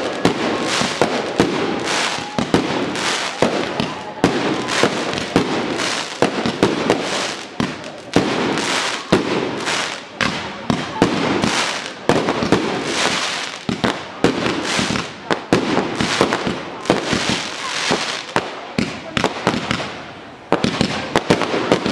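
Fireworks display: aerial shells bursting in rapid succession with sharp bangs and crackling, almost without pause. There is a brief lull near the end before a new volley starts.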